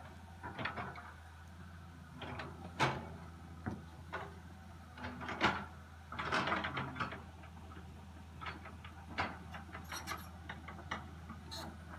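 Caterpillar 315C hydraulic excavator running, its engine a steady low hum under irregular clanks and knocks from the moving boom, bucket and tracks.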